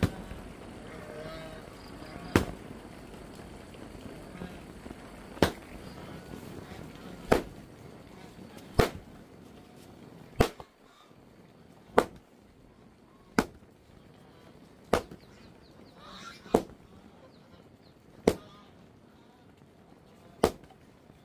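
About a dozen sharp strikes or knocks at a steady pace, roughly one every one and a half to two seconds, over faint background noise that drops away about halfway through.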